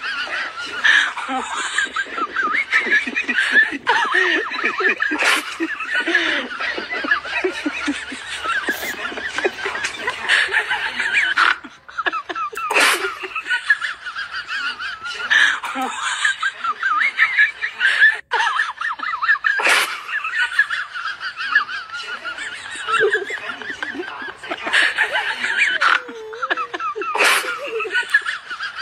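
Laughter: high-pitched giggles and snickers running on without a break.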